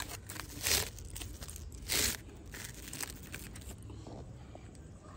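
Aluminium foil crinkling as it is handled around a baked potato, with two louder crinkles about a second apart in the first two seconds and a few fainter rustles after.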